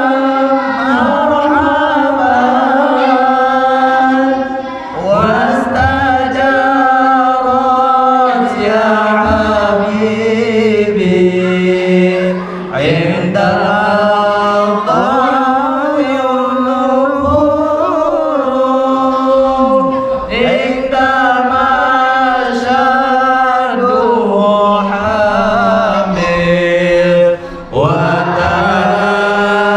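A man chanting salawat (devotional praise of the Prophet) into a microphone, in long wavering phrases of about seven seconds each with a short breath between them.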